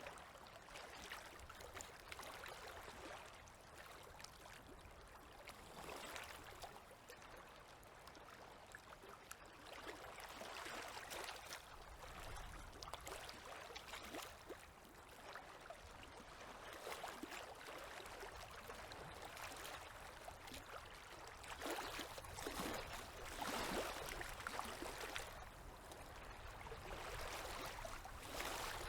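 Small river waves lapping and splashing softly at the water's edge, in uneven surges that swell and ease, a little louder about two-thirds of the way through.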